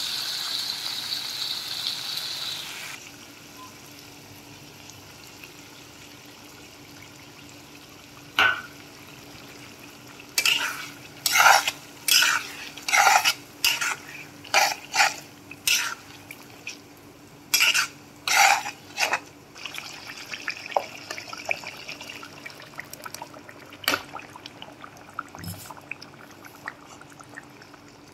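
Mutton curry sizzling in a frying pan, the sizzle cutting off about three seconds in. In the middle comes a quick run of about ten metal-spoon scrapes and knocks against the pan, with a few more scattered near the end.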